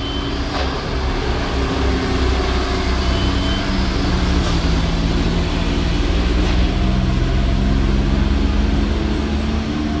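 Several heavy trucks' diesel engines running slowly through a steep mountain hairpin: a steady low drone of overlapping engine notes that drift up and down a little.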